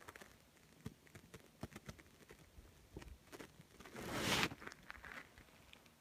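Faint scattered clicks and rustling, with one louder breathy rush of noise about four seconds in.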